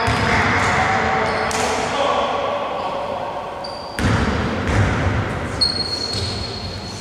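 Live sound of an indoor basketball game echoing through a gym: the ball bouncing on the hardwood floor and players calling out, with the noise turning suddenly louder about four seconds in.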